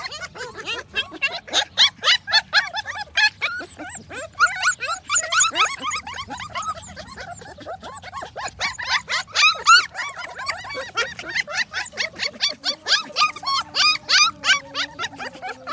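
Several puppies yipping and squealing nonstop: many short, high-pitched cries overlapping, several a second.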